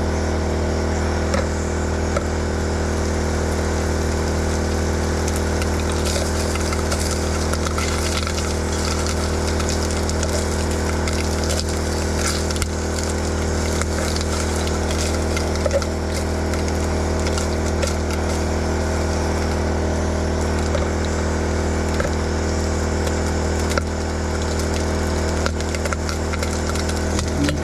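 Portable generator engine running steadily with an unchanging hum, with a few faint clicks over it.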